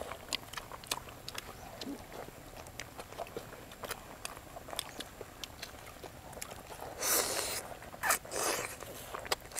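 Close-miked eating: chewing bread soaked in chicken curry, with many small sharp mouth clicks and smacks. Two longer, louder mouth sounds come near the end.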